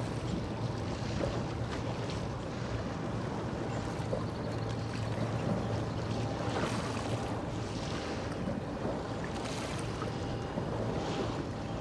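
Steady low hum of the steam-turbine lake freighter Wilfred Sykes passing close, under a continuous rush of water and wind on the microphone, with brief bursts of hiss in the second half.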